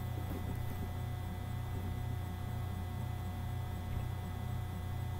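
Steady low electrical hum, with a few faint steady higher tones above it.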